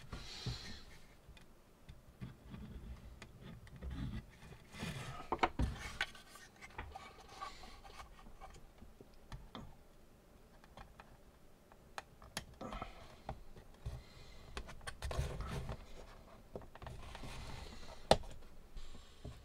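Hands handling a 3D-printed plastic excavator bucket on a wooden bench: faint rubbing and scraping of plastic, with scattered light clicks and knocks as parts are set down and pressed together.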